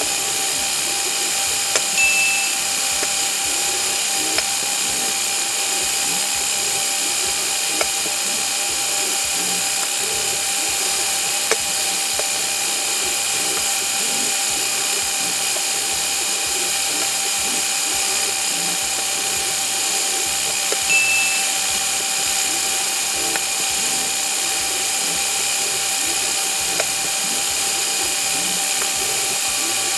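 Steady high whine and hiss of the small electric motors of a Lego gantry crane's motorised lift rig, played at five times speed, with light clicks scattered through it and two brief higher chirps.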